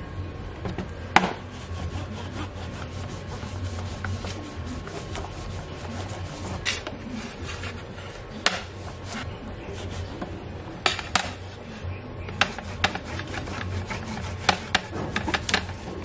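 Rubbing and scraping on wood, broken by a dozen or so sharp clicks and knocks at uneven intervals, over a low steady hum.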